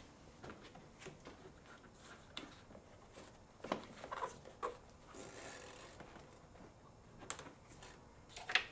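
Faint scattered clicks, taps and rubbing from gloved hands handling hoses and plastic parts in a car's engine bay, with a brief rustle about five seconds in.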